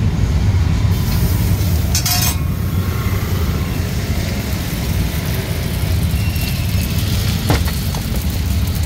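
A steady low engine rumble, with a short hiss about two seconds in and a couple of light clicks near the end.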